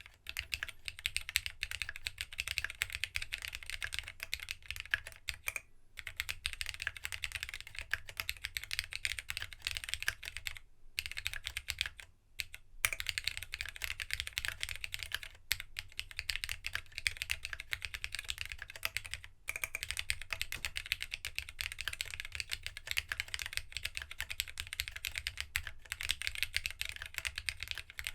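Fast, continuous typing on a Geonworks W1-AT mechanical keyboard, a plateless, foamless build with GSA-profile keycaps: rapid keystroke clacks with a few short pauses.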